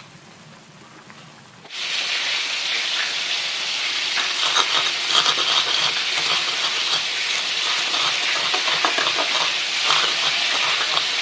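A wooden pestle grinding peanuts and chillies on a clay mortar (cobek) for peanut sambal: a loud, continuous gritty scraping with many small crunches that starts abruptly about two seconds in. Before it, a wok of soup simmers faintly.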